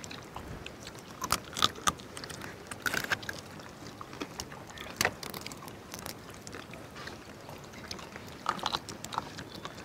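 Scattered small cracks and clicks of cooked crab shells being broken apart by hand and chewed, over a faint steady background; the sharpest crack comes about halfway through.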